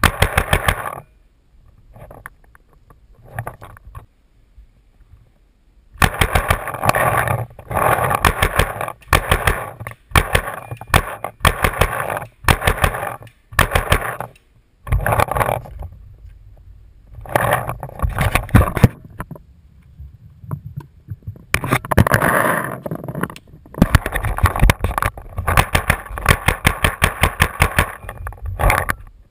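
Paintball marker firing in rapid strings of shots, many a second, in repeated bursts of one to several seconds with short pauses between them.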